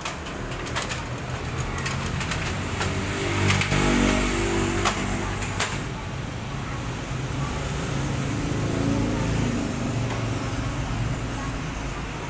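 Sharp clicks and knocks as the copier's side panel and a screwdriver are handled, about half a dozen within the first six seconds, over a steady low background hum.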